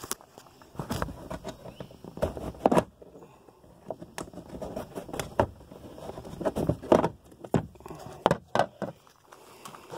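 Scattered clicks, knocks and rustles as a cam-locking plastic hatch cover on a kayak is worked open, mixed with handling noise from the phone being moved about.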